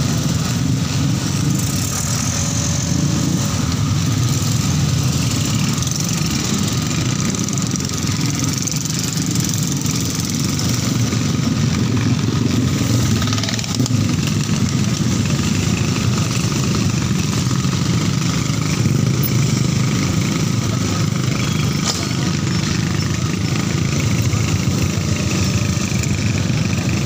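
Motorcycle engine running steadily while riding in dense traffic, mixed with road noise and the engines of the motorbikes and cars around it.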